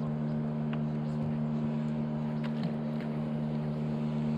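Boat's outboard motor running at a steady, even pitch, with no change in speed.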